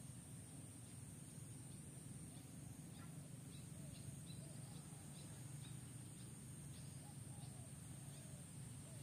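Faint outdoor ambience: a steady low hum and a steady high hiss, with a run of faint, short, distant bird chirps from about three to seven seconds in.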